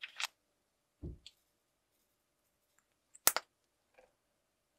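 Small plastic glitter pots handled over a table: a sharp click at the start, a dull knock about a second in, and the loudest, a quick double click about three seconds in, as a little pot of gold glitter is opened.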